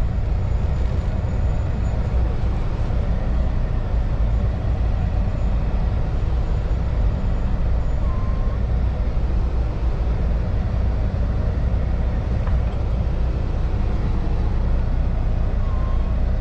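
Kenworth heavy-haul tractor's diesel engine and road noise inside the cab, a steady low rumble, while hauling a heavy load on the highway.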